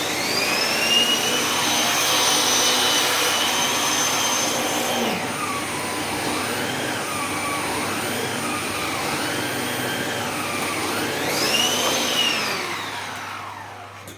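Electrolux SilentPerformer Cyclonic vacuum cleaner's 650-watt motor switching on and whining up to speed. From about five seconds in the pitch drops and wavers under load as it drives the turbo brush by suction. Near the end it climbs once more and then winds down as it is switched off.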